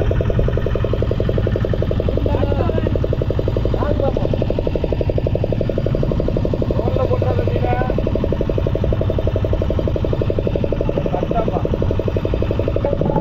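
Outboard motor of a small fishing boat running steadily while trolling, its fast, even engine pulses unbroken throughout.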